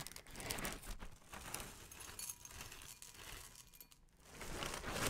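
Plastic liner bag of a cereal box crinkling as it is pulled open and handled. Near the end, corn puffs are poured out of the box.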